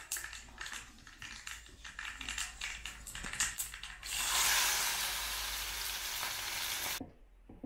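Kitchen work: a run of quick clicks and knocks of utensils, then about four seconds in a steady hiss that holds for about three seconds and cuts off abruptly.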